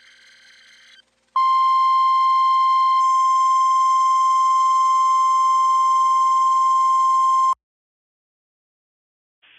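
NOAA Weather Radio warning alarm tone: one steady, loud 1050 Hz tone that comes in about a second and a half in, holds for about six seconds and cuts off abruptly. It signals that a warning is being broadcast, here a test tornado warning. Faint receiver hiss comes before it.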